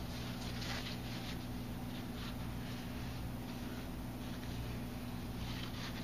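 Paper towel rubbing and rustling against a graphics card's GPU chip, wiping off old thermal paste, in a few short soft bouts over a steady low hum.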